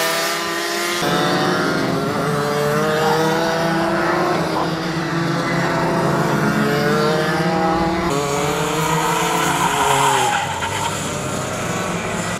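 Racing kart two-stroke engines revving up and easing off through corners, several engines overlapping with their pitch rising and falling. The sound changes abruptly about a second in and again about eight seconds in.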